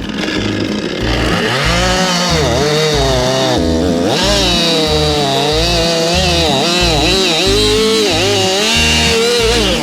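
Two-stroke chainsaw cutting through a maple log, its engine note dipping and recovering as the sharp chain bites into the wood.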